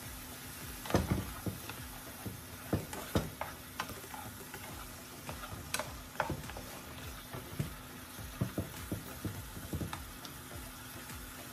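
Chopped bell pepper, onion and garlic sizzling as they sweat in oil in a frying pan, stirred with a spatula that scrapes and taps against the pan at irregular intervals from about a second in until near the end.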